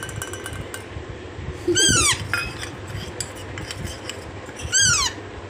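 A hand-fed Alexandrine parakeet chick gives two short begging calls, each rising then falling in pitch, about three seconds apart: the hungry chick asking for food at feeding time. A steel spoon and cup clink lightly against the bowl between the calls.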